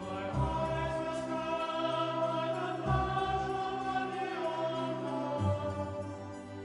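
Male choir singing in a Gregorian-chant style, with deep sustained notes underneath that change about every two and a half seconds.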